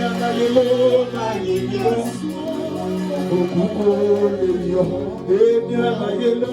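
Live gospel band music: a wavering guitar melody over held low keyboard chords, steady throughout.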